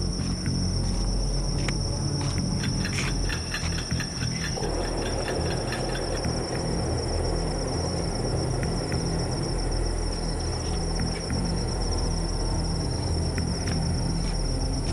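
Night insects, crickets among them, trilling in a continuous high-pitched band over a steady low hum. A scatter of faint clicks comes in the first few seconds, and a rougher rushing noise joins underneath about four and a half seconds in.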